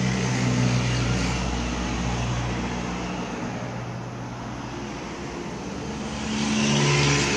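A motor running steadily, with a low hum under a broad hiss, growing louder near the end.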